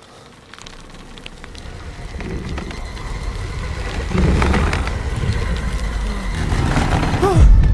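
Film sound-design rumble: a deep rumble with a hiss of noise above it, swelling steadily louder, with scattered crackles and a few short falling tones; a heavy low boom comes in near the end.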